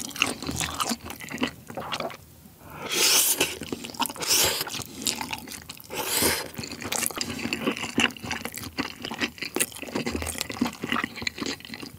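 Close-miked wet chewing and mouth clicks of someone eating spicy rabokki: ramen noodles, rice cakes and sausage in sauce. Several loud slurps of noodles come in the middle.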